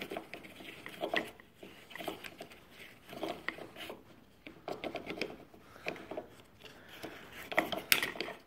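Irregular clicks, knocks and rubbing of hard plastic and metal parts being handled and worked loose as a brushcutter gearhead is taken apart, with a few sharper knocks near the end.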